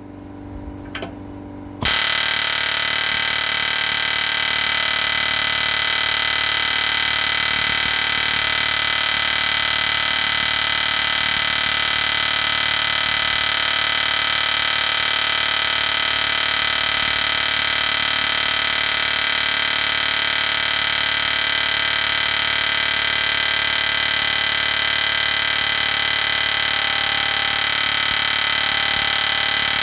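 Pneumatic long-stroke air hammer starting about two seconds in and running non-stop as one loud, steady buzz, hammering a stubborn steel frame rivet to drive it out.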